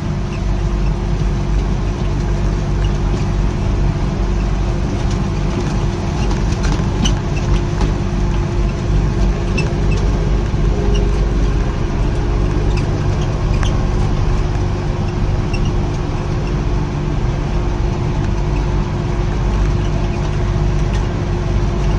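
Tractor engine running steadily with a constant hum while pulling a hay mower through the field.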